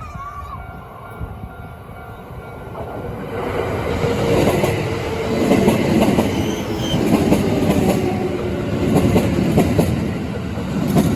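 A train passing by a level crossing: the rumble of its wheels on the rails builds from about three seconds in and stays loud as the cars go by.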